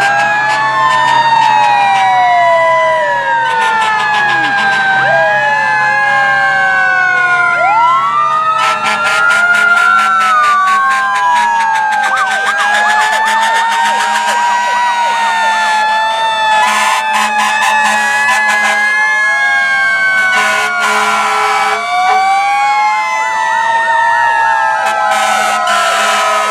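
Several fire truck sirens wailing at once, each rising and falling out of step with the others as the apparatus pass, over a steady low engine hum, with short stretches of rapid clicking on top.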